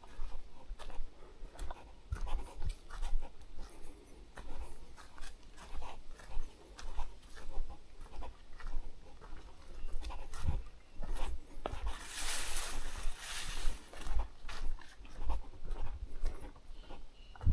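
Footsteps of a hiker walking at a steady pace on a trail, a soft thud about every three-quarters of a second. About twelve seconds in comes a brief hiss lasting around two seconds.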